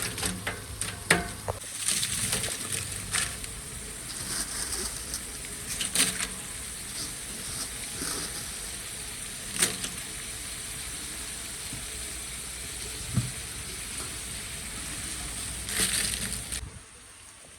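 Food sizzling and frying in a cooking pot, a steady hiss broken by scattered clicks and knocks, then cutting off abruptly near the end.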